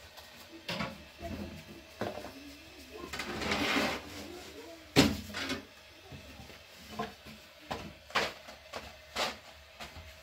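Knocks and clicks of a thin wooden rolling pin and dough on a low wooden board as flatbread dough is rolled out and handled, with a rustling swish about three seconds in and the loudest knock about five seconds in.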